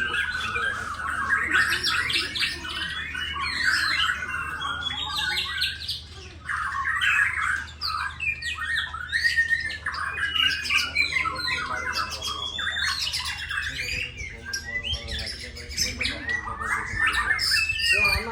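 Bornean white-crowned shama (murai batu Borneo) singing a rapid, nonstop string of varied whistles, trills and harsh chattering notes, the 'konslet' style of song prized by songbird keepers, with a short pause about six seconds in.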